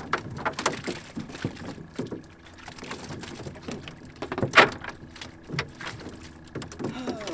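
A cast net holding live mullet is lowered and emptied onto the deck of a small boat, making irregular knocks and slaps. The loudest is a sharp thump about four and a half seconds in.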